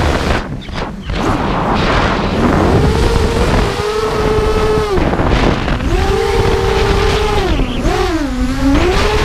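Racing quadcopter's four DYS MT2206 2300kv brushless motors and 5045 props whining, the pitch falling and rising with the throttle: it drops sharply with a brief lull right at the start, climbs again about two and a half seconds in, and dips twice more near five and eight seconds. Wind rushes on the onboard microphone underneath.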